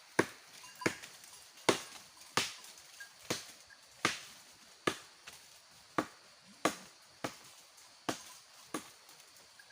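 A blade chopping fodder-tree branches: about a dozen sharp strikes at a steady pace of a little over one a second.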